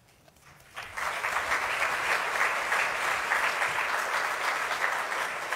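Audience applauding. It starts about a second in and holds steady as a dense patter of many hands clapping in a large hall.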